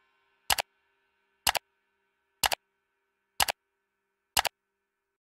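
Clock-like ticking: a sharp double click repeating evenly about once a second.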